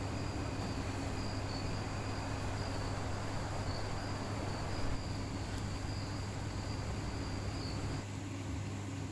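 Crickets chirping steadily over a steady low hum, a night-time ambience; the chirping stops about eight seconds in.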